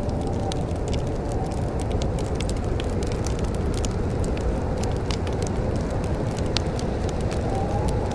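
Wood fire crackling in a fireplace: many small irregular pops and snaps over a steady low rumble.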